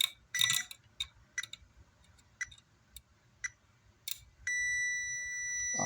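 Several sharp clicks of meter probe tips tapping on circuit-board component leads. About four and a half seconds in, a multimeter's continuity beeper starts a steady, high beep that holds on, signalling a direct connection between the probed points.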